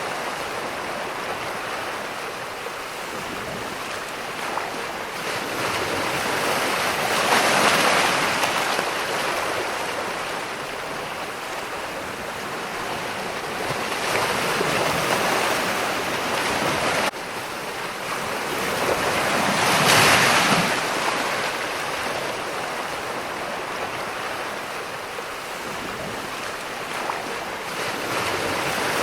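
Ocean surf: waves breaking and washing in a steady hiss that swells with each wave every several seconds and then subsides, the strongest wave about two-thirds of the way through.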